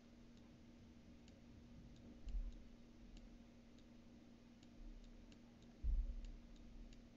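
Faint light clicks, about two a second and not quite regular, of a stylus writing on a tablet, over a steady low hum. Two soft thumps come about two and a half seconds in and near six seconds.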